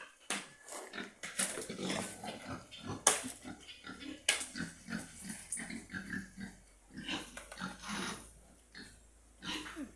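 Pigs grunting in a run of short, irregular grunts, with a few sharp clicks or knocks among them, the loudest about three seconds in.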